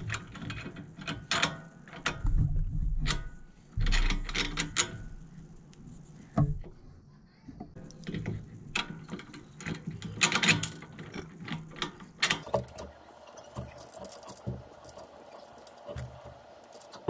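Metal clinks, clicks and knocks from a steel bolt and a steering stabilizer's end being handled and fitted into its metal mounting bracket, irregular and loudest in the first half, thinning out after about twelve seconds.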